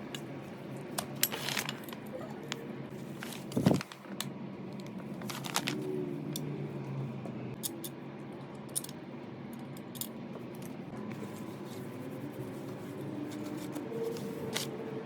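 Small metal parts and hand tools clicking and clinking while the sprayer is put back together, with a louder knock about three and a half seconds in, over a steady low hum.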